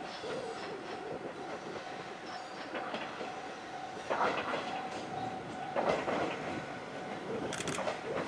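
Echizen Railway electric train approaching and pulling into the platform. Its wheels knock over rail joints, loudest about four and six seconds in, over a steady whine.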